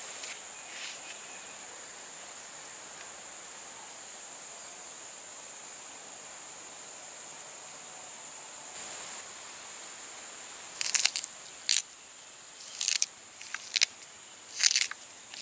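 A steady high insect drone runs throughout. From about 11 seconds in, a run of sharp, crisp snaps comes as fresh Lasia stalks are broken apart by hand.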